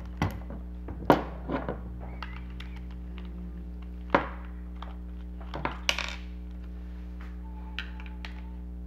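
Sharp clicks and taps of small hard objects being handled, about eight of them at irregular spacing, the loudest about a second in and at about four seconds, over a steady low hum.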